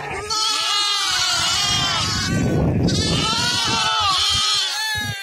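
A crowded flock of lambs and goat kids bleating, with many calls overlapping all the time.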